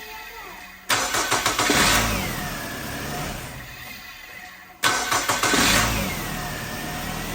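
Nissan X-Trail T30's QR25 four-cylinder engine starting twice. About a second in, it cranks briefly, catches and revs up, then fades away. Just under five seconds in, it cranks, catches and revs again, then settles into a steady idle. The engine is finally starting after many failed attempts, with the timing chain freshly refitted.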